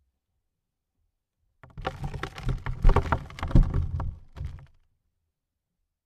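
Dirt falling onto a coffin lid: a burst of pattering grains and dull thuds lasting about three seconds, starting about a second and a half in, loudest in the middle and trailing off.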